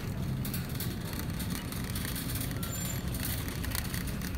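Wire shopping cart rolling over a hard store floor, its wheels rumbling and its basket rattling with steady irregular clicks.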